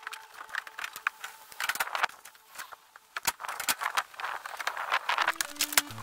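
Irregular clicks, knocks and light clatter of rooftop installation work: solar panels and mounting hardware being handled and carried across a flat roof. A melody of background music comes in near the end.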